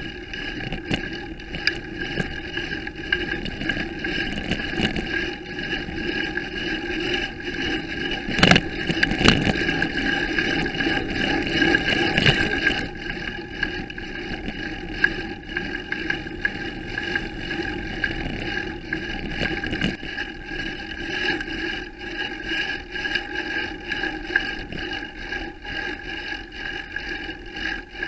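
Riding noise picked up by a camera mounted on a moving bicycle: a steady rumble of road and wind with frequent small rattles and knocks from the mount. It is loudest from about eight to thirteen seconds in, with a sharp knock near the start of that stretch.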